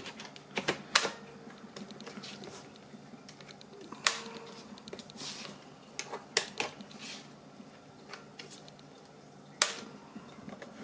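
Sharp plastic clicks and handling as a laptop battery is fitted into its bay, with the strongest clicks about a second in, about four seconds in and near the end.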